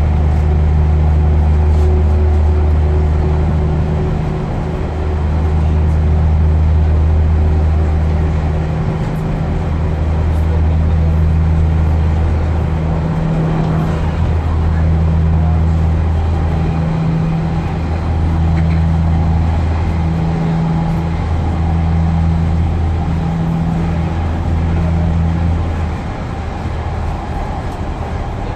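Class 142 Pacer diesel railcar on the move, heard from inside the carriage: a deep hum that swells and breaks off every three to four seconds, the breaks coming closer together, then settles quieter near the end.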